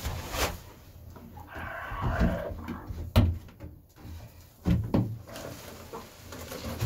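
Plastic wall-mounted chicken nesting box handled and tilted off its wall bracket, with a few sharp plastic knocks and rattles.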